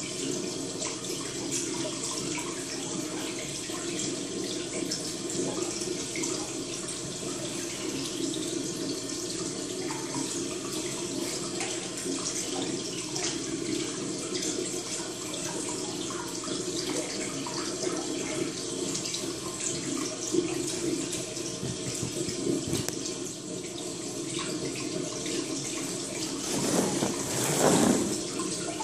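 Steady running-water sound with many faint crackles, swelling louder for a second or two near the end.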